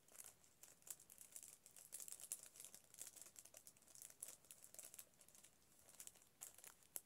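Faint, irregular crinkling and light ticking of small craft pieces handled by hand, as a self-adhesive googly eye is worked off its backing sheet.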